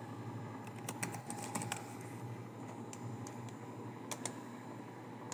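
Scattered keystrokes on a computer keyboard, a few irregular taps in small clusters, over a faint steady hum.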